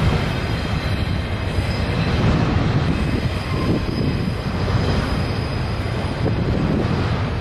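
Double-stack container train rolling steadily across a steel girder bridge: a continuous rumble of wheels on rail and bridge steel, without breaks or sharp impacts.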